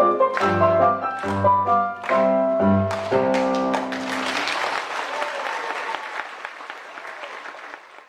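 Piano music with deep bass notes playing its last phrase, ending about three seconds in, followed by applause that gradually fades away.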